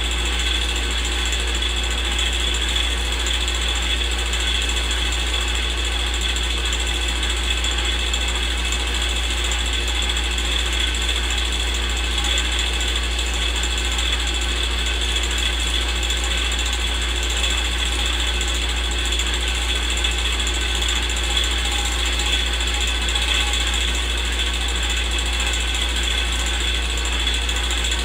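Film projector running: a steady mechanical whir with a low hum, kept up without change.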